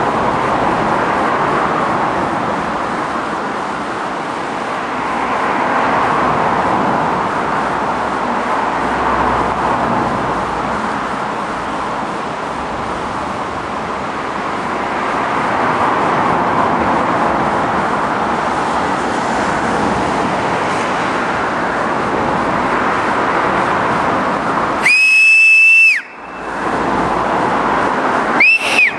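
Steady rushing of a mountain river running over rocks. Near the end, a loud, sharp whistle lasts about a second and drops in pitch as it ends, followed shortly by a second brief whistle.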